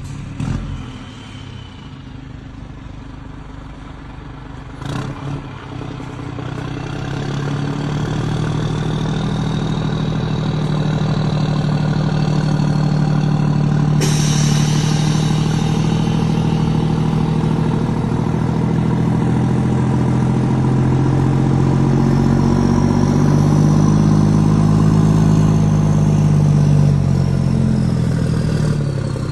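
Scania 540 truck's V8 diesel engine rumbling loudly with a deep, steady drone. It grows louder about seven seconds in, holds, and eases off near the end.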